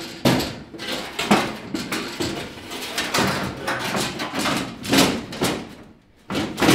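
Sheet-metal floor panel scraping, rattling and knocking against a Triumph TR3's body as it is wiggled and slid into place, with a sharp knock near the end.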